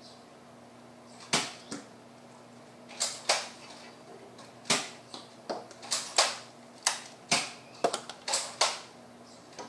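Plastic clicks and clacks from a toy Nerf foam-dart blaster being handled and worked: about a dozen sharp clicks at irregular intervals, coming faster in the second half.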